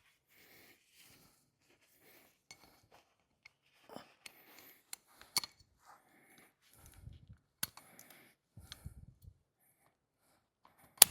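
Small metal parts clicking and scraping as a retainer spring is worked by hand onto a motorcycle's foot shift shaft, the spring legs snapping against the shaft and its bushing. A sharp, louder click comes near the end.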